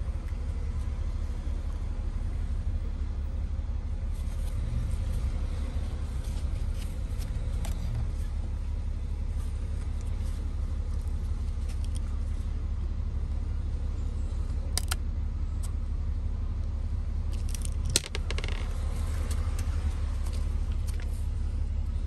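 Light clicks and clinks of an iPhone logic board and its small metal and plastic parts being handled, including two sharp clicks about fifteen and eighteen seconds in, over a steady low hum.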